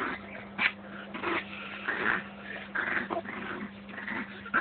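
Yorkshire terriers play-fighting, with short bursts of dog vocalising about once a second as they wrestle.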